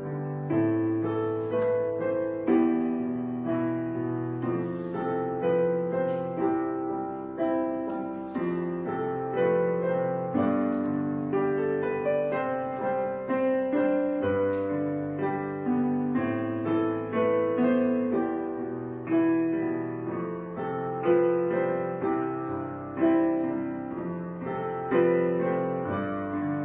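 Background piano music: a melody of struck, fading notes over a lower accompaniment.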